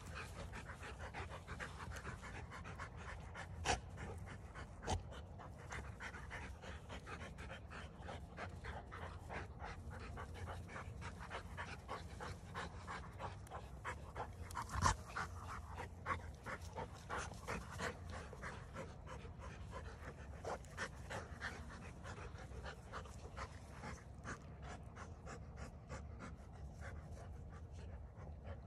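Rottweilers panting fast as they nose and push bowling balls over the grass, with a few sharp knocks, the loudest about fifteen seconds in.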